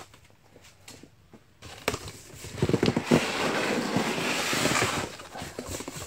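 Cardboard shipping box and foam packing blocks being handled: a few light clicks, then from about two seconds in a run of rustling and scraping that eases off near the end.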